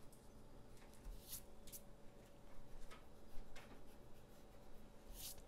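Pencil drawing on paper: faint scratching strokes of the graphite, a handful of them sharper and more distinct.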